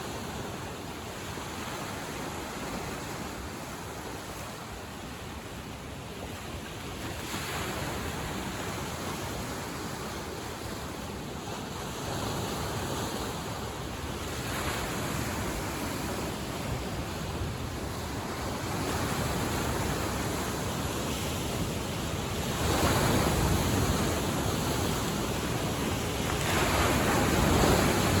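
Lake Michigan waves washing onto the shore in a steady rush, swelling with each breaking wave every few seconds, with some wind.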